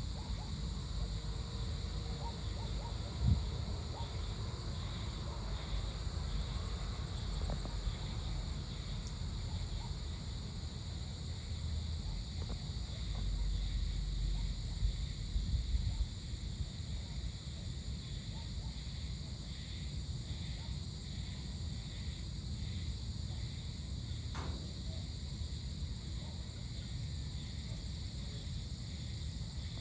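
Evening insect chorus: a steady high-pitched drone over a low rumble that swells for a few seconds around the middle.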